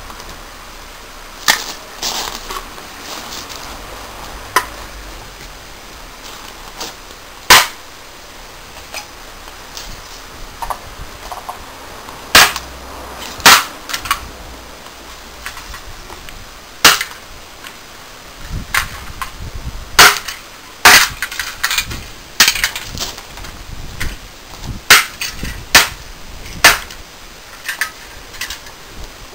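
Freshly sharpened billhook chopping down onto a log chopping block, cutting a wooden lath and then an aluminium drink can: a string of sharp whacks, spaced out at first, then coming quicker in the second half.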